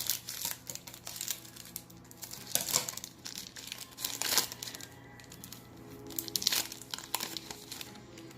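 Foil trading-card pack wrapper crinkling and tearing as a pack is handled and opened, in irregular bursts of crackle.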